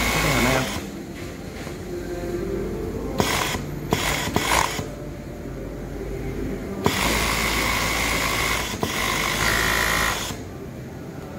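Kansai Special industrial overlock machine (serger) stitching a long seam: it runs briefly at the start, pauses with a few light clicks, then runs again for about three seconds before stopping.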